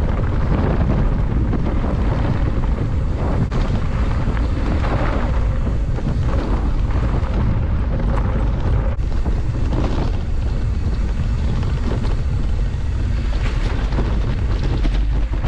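Wind buffeting a bike-mounted action camera's microphone while riding along a rough track: a loud, steady, low rumble of rushing noise, with a few faint clicks from the bike going over bumps.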